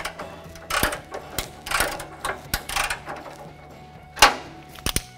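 3/8-inch ratchet clicking in short bursts as it is swung back and forth, backing off a rusted exhaust flange nut through a swivel and twisty socket. A sharper metal knock comes about four seconds in.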